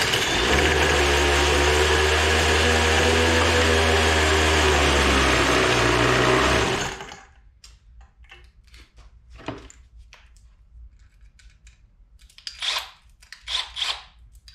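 A small motor running at one steady speed for about seven seconds, then winding down and stopping. Scattered clicks of tools being handled follow.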